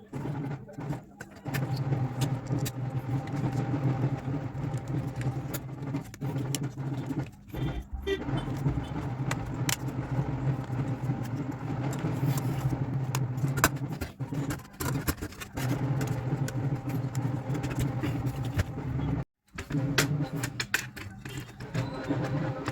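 A steady low hum runs throughout, with many small clicks and taps scattered over it. It drops out briefly about three-quarters of the way through.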